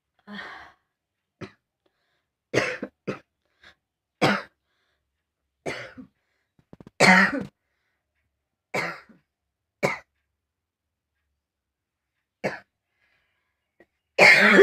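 A person coughing hard and deliberately, about a dozen coughs in irregular single bursts and short runs, the loudest about halfway and at the very end. The coughing is forced, and it is straining a throat that is already sore.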